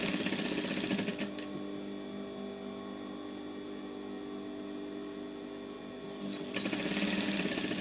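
Industrial lockstitch sewing machine stitching in two short runs, one lasting about a second and a half at the start and another of about a second near the end. In between, its motor hums steadily.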